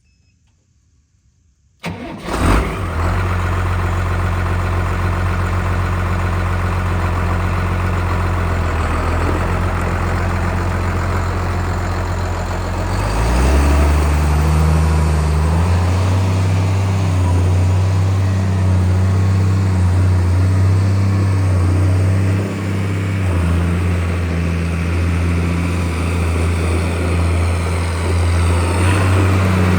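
New Holland 8360 tractor's 7.5-litre six-cylinder turbocharged diesel starting after a brief crank about two seconds in, then running steadily at idle. About halfway through, engine speed rises and holds higher, with a short dip a few seconds later.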